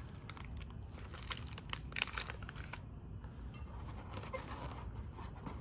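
Packaging rustling and crinkling as it is handled, with scattered small clicks and taps, busiest in the first three seconds.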